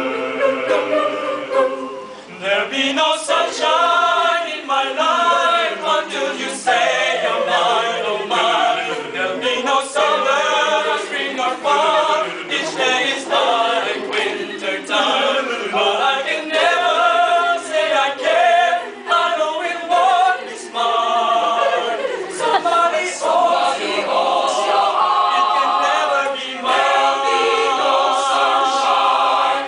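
Mixed choir singing a pop ballad a cappella, several voice parts in harmony, with a brief dip about two seconds in.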